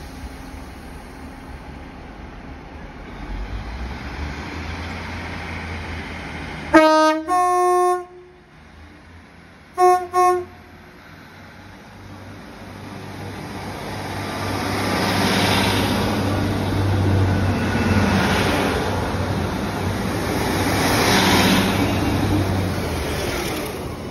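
Class 150 Sprinter diesel multiple unit sounding its two-tone horn: one blast about seven seconds in, low note then high, then two short toots on the high note about three seconds later. Its underfloor diesel engines then rev up in two swells as the train pulls away.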